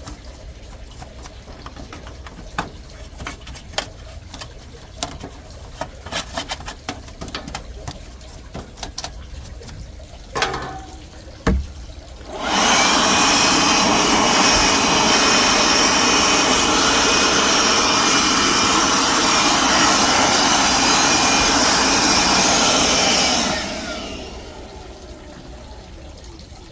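Scattered light clicks and knocks from hands working on the unit, then a powered cleaning jet starts about twelve seconds in. It runs as a loud, steady rushing hiss for about eleven seconds and fades out near the end.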